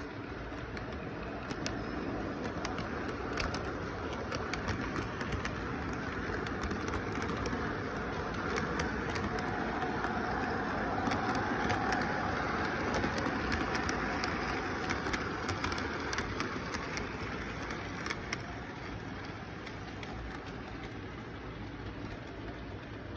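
Toy model train rolling past on its track: a clattering rumble with a stream of sharp wheel clicks that grows louder as the train nears, is loudest about halfway through, then fades as it moves away.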